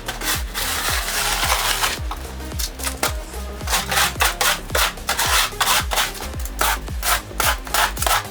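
Electronic dance music with a steady kick-drum beat about twice a second over a deep bass line. The first two seconds are filled by a sustained hissing scrape.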